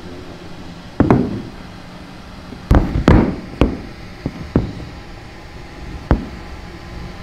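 Quadruped robot dog's rubber-tipped feet knocking on a wooden floor as it shifts and steps to keep its balance: about seven irregular knocks, the loudest about a second in and a pair near the middle.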